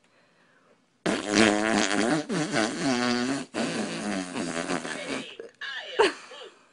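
A long, loud fart, wavering in pitch, starting about a second in and lasting around four seconds with a brief break in the middle. A short sliding sound follows near the end.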